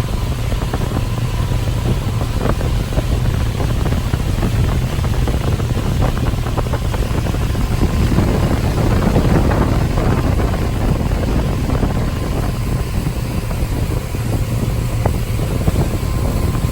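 Wind buffeting the microphone over a cabin cruiser's engine running under way, a steady, heavy low rumble.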